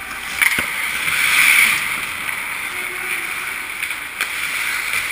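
Hockey skate blades scraping and carving on the ice, with a louder swell of scraping between about one and two seconds in. A sharp knock sounds about half a second in.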